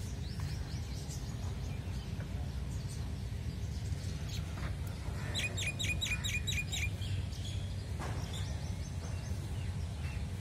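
Small birds chirping outdoors, with a quick run of about eight evenly spaced chirps about halfway through, over a steady low background rumble.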